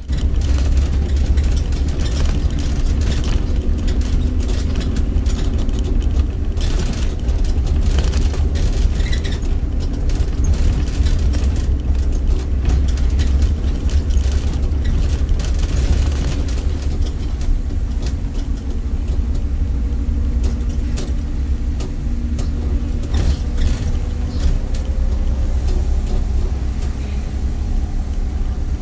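City bus on the move, heard from the driver's cab: a steady engine drone over a heavy low road rumble, with rattles and clicks from the bus interior.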